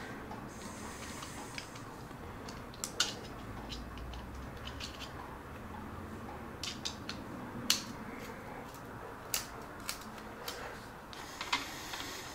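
Screwdriver working on the radiator hose clips of a Kawasaki ZX-14R: scattered sharp metal clicks and tool clinks, with two short high rasps near the start and near the end.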